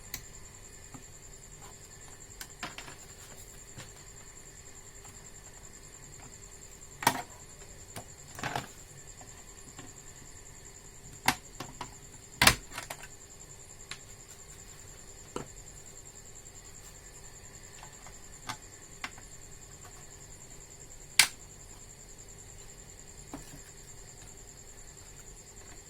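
Scattered sharp clicks and light taps of hand tools and small parts being handled on a repair bench, about a dozen spread irregularly, over a faint steady high-pitched whine.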